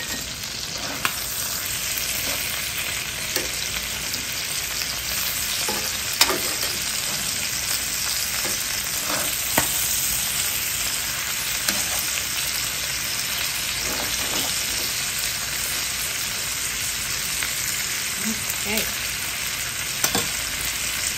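Chicken pieces sizzling steadily in hot oil in a 15-inch cast-iron skillet as they are turned over with metal tongs once browned. A few sharp clicks and scrapes of the tongs on the pan stand out over the sizzle.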